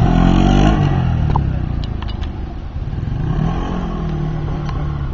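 Yamaha Zuma 125 scooter's single-cylinder four-stroke engine revving hard during a wheelie, its pitch falling over the first second. It then runs quieter, with its note rising and falling.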